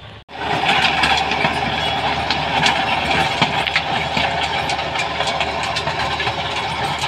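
John Deere tractor's diesel engine running steadily under load, powering a rear-mounted rotavator (rotary tiller) that churns through the dry soil.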